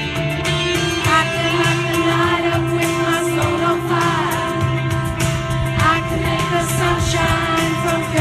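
A large, mostly female amateur choir singing a pop-rock song in unison and harmony over an amplified backing track with a steady beat.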